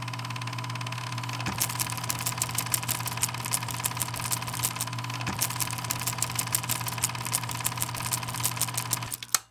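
A small machine running: a steady hum with a fast, even rattle of clicks that starts about a second and a half in, then stops suddenly near the end.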